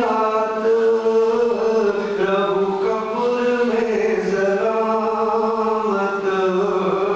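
A man's voice chanting a melodic recitation into a handheld microphone, holding long notes that slide gently in pitch, in phrases with short breaks between them.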